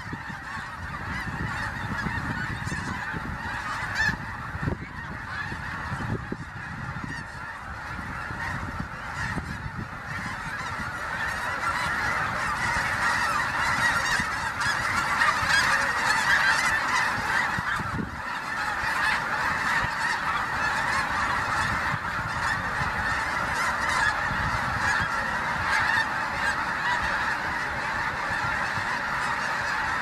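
A huge flock of snow geese calling all at once, a dense, unbroken din of honking, as the birds lift off the water, with a low rumble underneath. It grows louder toward the middle.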